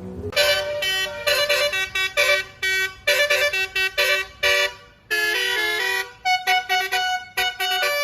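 Basuri multi-tone bus air horn (telolet) playing a quick melody: a run of short toots jumping between pitches, with one longer held note about five seconds in.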